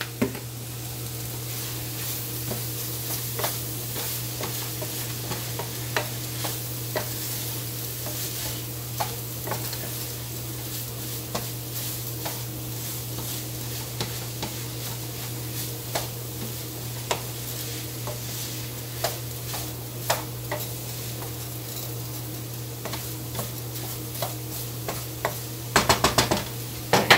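Seasoned ground beef sizzling in a pan while being stirred, with scattered scrapes and clicks of the utensil against the pan and a quick flurry of taps near the end. A steady low hum runs underneath.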